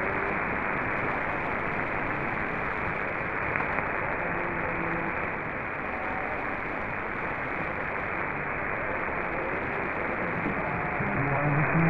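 Shortwave static from an SDR receiver in synchronous AM mode on a weak 6205 kHz signal: a steady hiss cut off above about 2.5 kHz by the receiver's filter, with only faint snatches of the station's audio buried in it.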